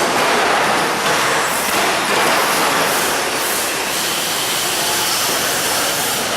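Electric 2WD radio-controlled short-course trucks racing: a steady, loud rushing noise of motors and tyres running on the track.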